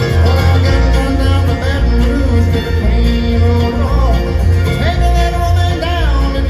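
Live bluegrass band playing an instrumental break, with a steady pulsing bass and sliding lead notes over the strings.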